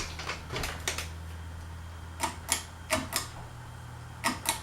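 Fanimation Belleaire ceiling fan's motor humming steadily on medium speed, with about eight sharp clicks, mostly in close pairs, over the hum.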